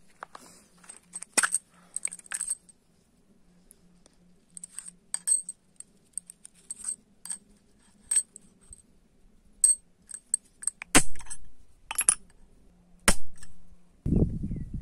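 Short steel handle pins clinking against each other and against a steel anvil block as they are handled and set down: a scatter of light metallic clicks, with a few sharper knocks in the last few seconds.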